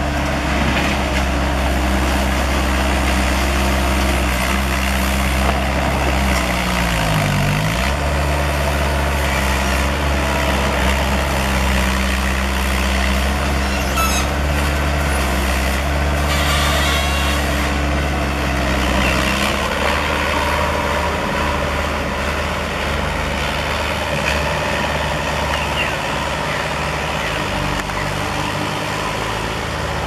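Diesel engines of a Bobcat S130 skid-steer loader and a JCB backhoe loader running as the machines work. The engine note dips in pitch and recovers about seven seconds in, and it shifts again about two-thirds of the way through.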